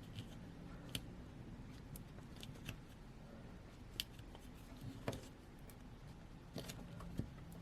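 Faint, scattered small clicks and taps from hands working on a smartphone's internal parts, pressing flex-cable connectors into place.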